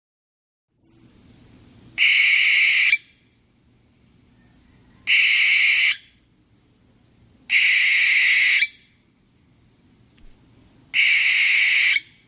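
An owl giving four long high-pitched calls, each about a second long and a few seconds apart.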